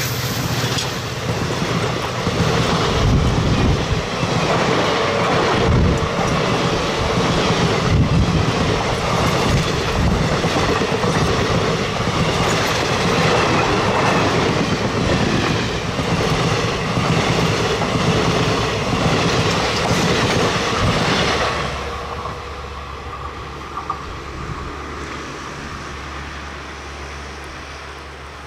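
Express train's passenger coaches rushing past at close range, the wheels clattering over the rail joints. About twenty-one seconds in the noise drops sharply to a much quieter rumble that fades as the train draws away.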